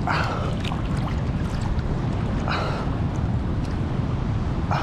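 Steady wind rumble on the microphone with water splashing in short bursts three times, about two and a half seconds apart, in an open-air sea pool.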